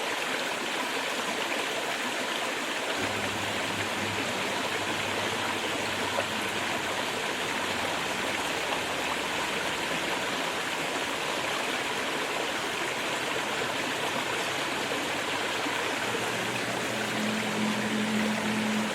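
Small stream flowing, a steady rush and trickle of water.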